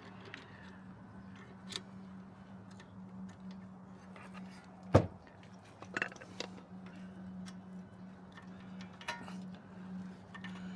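Small metal clicks and taps of a screwdriver working the pins and pads of a brake caliper, with one sharp knock about five seconds in, over a steady low hum.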